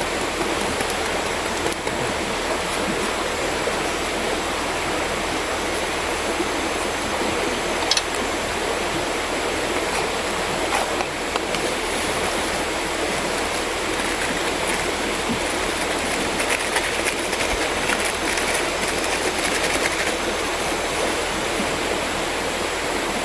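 Mountain river flowing steadily, with one sharp click about eight seconds in.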